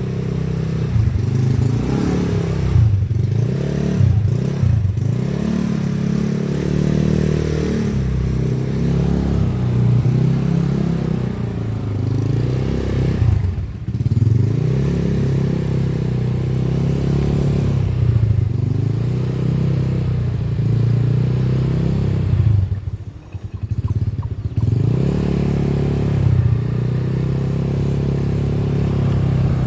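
Yamaha Mio Sporty scooter's single-cylinder four-stroke engine, bored up to 130 cc, running through a Daeng aftermarket exhaust pipe and being revved up and down. Its note drops off briefly about 14 seconds in, and more deeply around 23 seconds, before picking up again.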